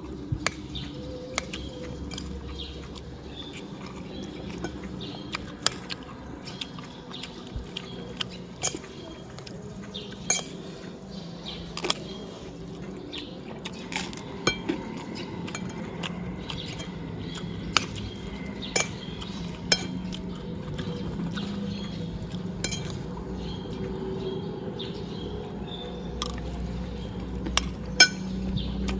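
Cutlery clinking and scraping against a plate during a meal of beef curry and rice: scattered sharp clicks, irregular and a second or two apart, over a steady low background hum.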